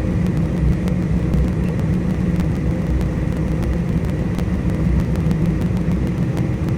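Combine harvester running steadily while harvesting corn: a constant low machine drone with a faint high whine and scattered light ticks.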